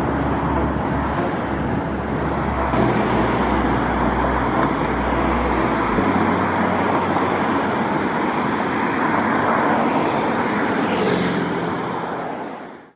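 Steady road traffic noise, with a low hum underneath that stops about six seconds in; it all fades out at the end.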